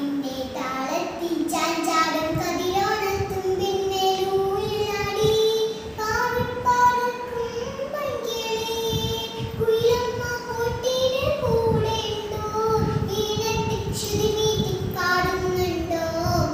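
A young girl singing a Malayalam Onam song (Onappattu) in long, drawn-out notes.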